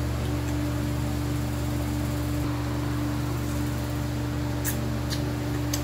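A steady mechanical hum with a constant low tone under an even hiss, with a few light clicks near the end.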